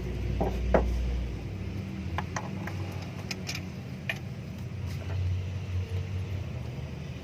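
Car engine running at idle with a steady low hum. A deeper rumble under it drops away about a second and a half in, and light metallic clicks come now and then.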